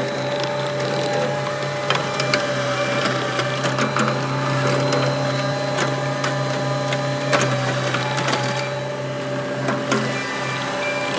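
Cat 259D compact track loader's diesel engine running steadily under load with a constant whine, and scattered clanks and knocks from the machine working the ground.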